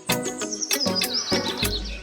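Background music with a steady percussive beat and a high melody that steps downward.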